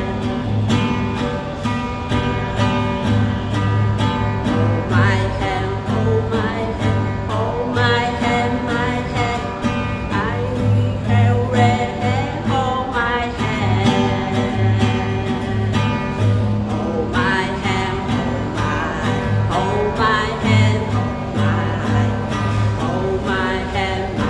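A pop song played on guitar with a steady beat and a singing voice.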